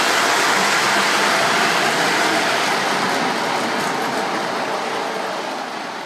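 Lionel electric model train running along three-rail track: the steady running noise of its wheels and motor on the rails, growing gradually quieter.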